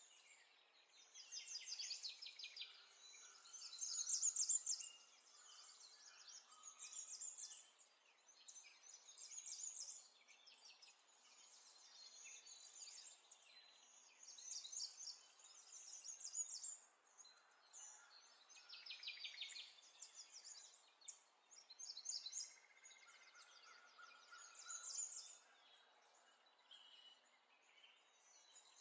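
Faint birds chirping and trilling in short repeated phrases, with a few brief whistled notes.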